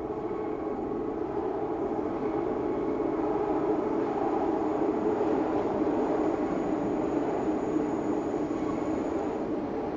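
Vintage Paris Métro train running, heard from inside the car: a steady rolling rumble of the wheels on the rails that builds a little over the first few seconds and then holds, with a faint thin high whine above it.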